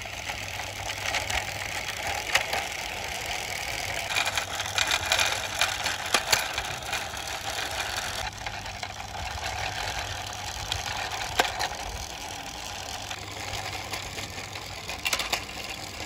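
Die-cast metal toy city bus pushed by hand along a rough, mossy stone ledge: a steady rolling rumble and scrape from its wheels, with a few sharper clicks.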